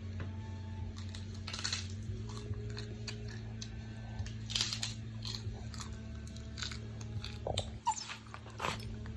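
A pet crunching dry kibble, irregular crisp bites and chews several times a second, over a steady low hum.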